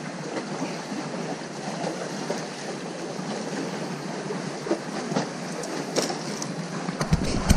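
Steady rushing wash of sea waves at the shore, with a few light clicks near the end.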